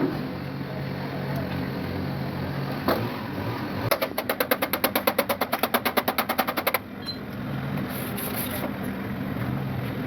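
A fast, even run of sharp clicks, about ten a second, starting about four seconds in and stopping abruptly after nearly three seconds, over a steady background hum.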